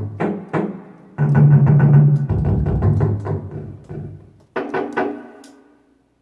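Yamaha DGX-660 digital keyboard playing its built-in drum and percussion sound-effect voices: a run of struck drum notes at different pitches in three short phrases, the loudest in the middle, the last one dying away.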